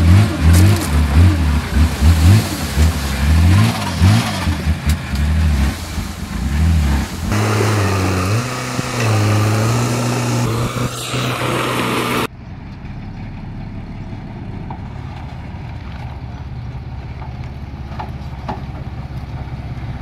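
Heavy diesel machinery engine revving up and down again and again, loud, until it cuts off abruptly about twelve seconds in. A quieter, steady low diesel engine hum runs after that.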